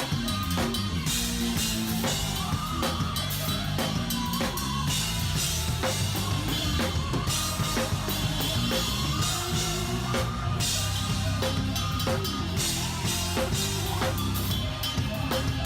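Live band music led by a drum kit: dense, fast snare, bass-drum and cymbal playing over a steady bass line and sustained keyboard tones.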